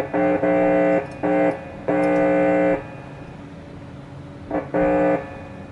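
Electric guitar played through a vintage tube amplifier with its reverb on: a handful of short held notes or chords, then a pause and one more about four and a half seconds in, showing that the amp passes signal and its reverb works.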